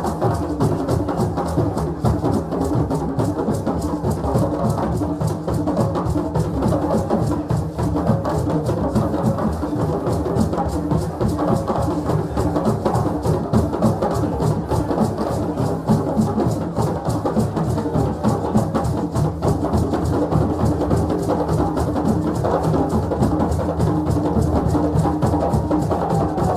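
Continuous fast drumming by a group of hand drums playing interlocking rhythms, dense and steady throughout.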